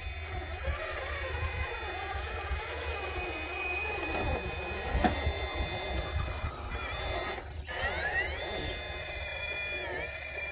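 Electric motor and geared drivetrain of an Axial Capra-based RC rock crawler whining as it is driven, the whine rising in pitch with throttle late on, over low rumbling, with a sharp knock about halfway.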